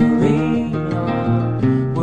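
Music: a song with acoustic guitar, between sung lines.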